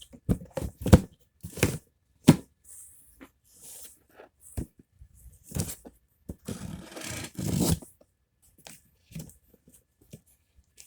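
Packing a cardboard box of fidget toys: several sharp knocks and rustles of handling in the first couple of seconds, then packing tape pulled off its roll in a noisy stretch of about a second, about seven seconds in, to seal the box.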